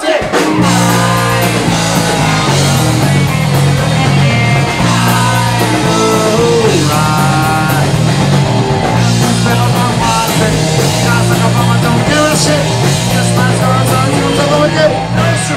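Punk rock band playing live: loud electric guitar and bass with a sung lead vocal, the band coming in all at once just after the start and breaking off at the end.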